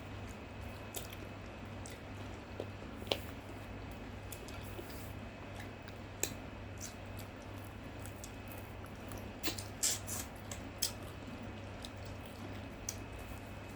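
Soft, scattered clicks and wet mouth sounds of someone eating, over a steady low hum, with a short cluster of louder clicks about ten seconds in.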